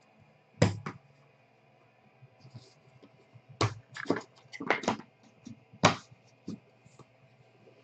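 A stack of trading cards being handled: several sharp taps and card rustles, one under a second in, a quick run of them in the middle, and a couple more about six seconds in.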